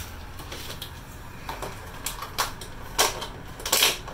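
Plastic food containers and lids clicking and knocking on a wooden desk as meals are handled: a string of short, irregular clatters, the loudest near the end.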